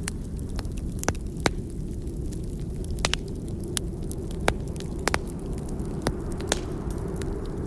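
Burning log crackling, a dozen or so sharp pops at irregular intervals over a steady low rumble.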